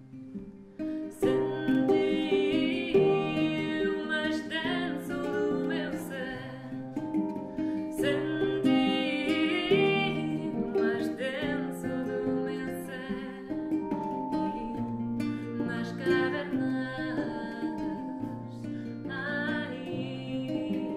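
A woman singing with handpan accompaniment and a plucked string instrument.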